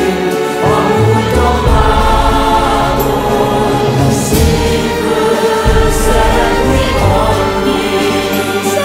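Background music: a choir singing sustained chords over instrumental backing with a moving bass line.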